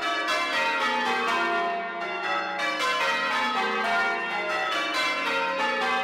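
A ring of eight church bells hung on wheels for full-circle change ringing, struck one after another in quick succession. Each stroke's ring overlaps the next in a continuous run of bell tones.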